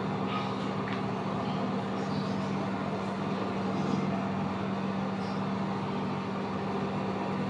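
A steady mechanical hum: an unbroken noisy drone with one constant low tone, unchanging throughout.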